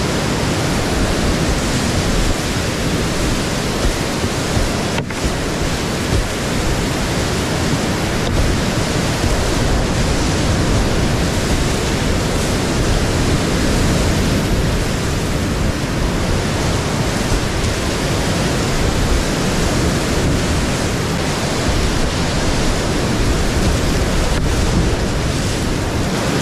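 Loud, steady rush of whitewater rapids churning around a kayak, heard close up from the paddler's helmet.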